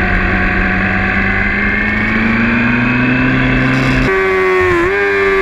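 Sport motorcycle engine heard from the bike itself, running at low speed with its pitch slowly rising as it pulls away. About four seconds in the engine note changes abruptly to a higher, stronger tone.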